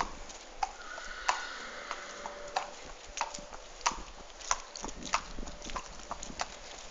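Horse's hooves clip-clopping at a walk on a hard yard: sharp, evenly spaced hoof strikes, about one every half second or so.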